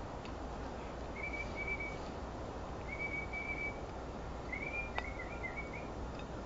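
Three whistled notes at about the same pitch: two held steady, then a wavering, warbled one. A single sharp click comes about five seconds in, over a steady background hiss.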